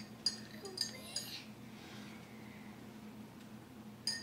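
A few light clinks of glassware and a metal tray, the first second and a half, then a quieter stretch while thick dish soap is poured into a glass cylinder, and one more clink at the very end.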